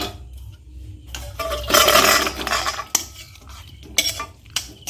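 Steel spatula scraping and knocking against a metal kadai as potato curry is scraped out into a steel serving bowl: a stretch of scraping in the middle, with sharp metallic clinks near the start and near the end.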